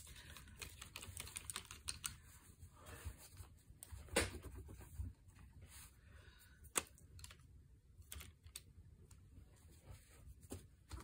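Scattered light taps and clicks of small craft items being handled and set down on a tabletop, with a few sharper knocks.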